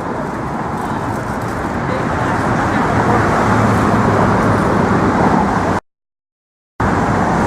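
Steady road-traffic noise from cars on the Brooklyn Bridge roadway, growing slightly over the first few seconds. It cuts out to complete silence for about a second near the end, then comes back.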